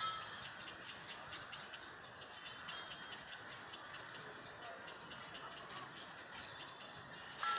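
Chirping from small animals in the trees: a steady run of quick, high ticks, with a louder, sharper call right at the start and again near the end.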